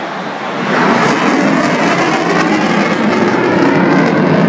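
F-16 fighter jet passing, the noise of its single jet engine swelling into a loud rushing rumble under a second in and holding steady.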